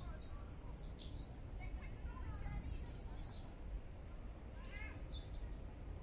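Small songbirds singing and calling in short, high-pitched phrases of thin notes sliding down in pitch, in three bouts about a second or two apart, over a low background rumble.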